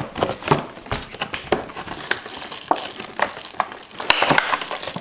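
Stiff plastic blister packaging crackling and crinkling as hands work a headset out of it, a run of sharp irregular clicks and rustles.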